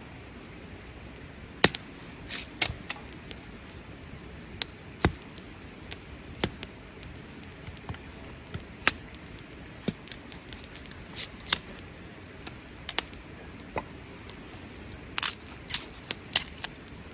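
Wood campfire crackling, with irregular sharp pops over a low steady hiss, a quick cluster of pops near the end.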